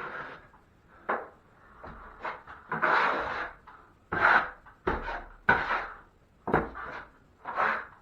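Steel drywall taping knife scraping wet joint compound across a taped drywall patch: a series of about eight separate strokes, roughly one a second, each starting sharply and trailing off as the first coat is spread and the tape is struck.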